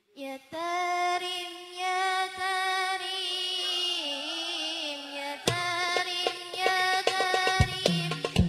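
Music: a song intro opens with a held, ornamented melody line, and hand drums come in about five and a half seconds in, playing a steady rhythm under it.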